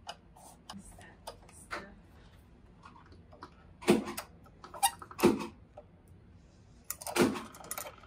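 Metal lock hardware clicking and knocking as Simplex lock trim parts are handled and fitted to a door by hand. There are a few faint ticks at first, then a handful of sharp clacks about four, five and seven seconds in.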